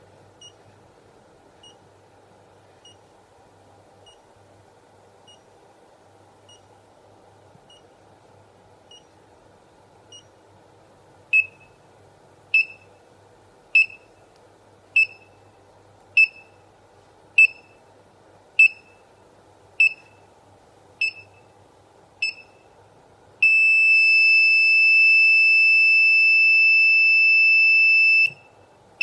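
Buzzer on a homemade 555-timer circuit beeping like a heart monitor, one short high beep about every 1.2 seconds. The beeps are faint at first and much louder from a little before halfway. Near the end the beeps give way to a steady unbroken tone lasting about five seconds, like a monitor's flatline.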